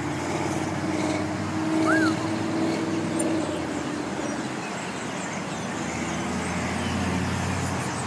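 Road traffic: car engines running and cars passing in a steady wash of noise, with a low hum that fades after about three seconds. One short high chirp sounds about two seconds in.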